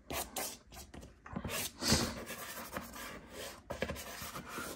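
Hard pastel (Nupastel) being worked over the gritty surface of Clairefontaine Pastelmat paper: an irregular run of scratchy, rubbing strokes of uneven loudness.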